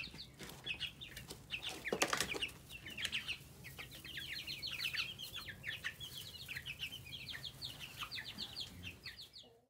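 A flock of three-week-old broiler and laying-breed chicks peeping: many short, high, falling peeps overlapping one another, with a brief louder noise about two seconds in. The sound cuts off suddenly near the end.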